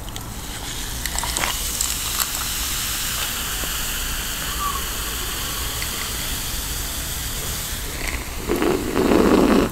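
Carbonated cola poured from a can into a glass, a steady fizzing hiss with a few small splashy clicks. Near the end a louder, lower sound as the cola is drunk from the glass.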